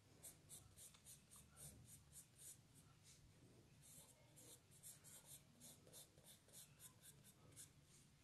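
Faint, quick shading strokes of a drawing tool scratching on paper, about four a second, with a short pause a little before the middle.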